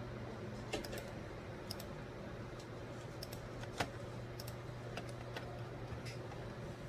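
Scattered, irregular clicks of computer keys, the sharpest a little under four seconds in, over a steady low hum.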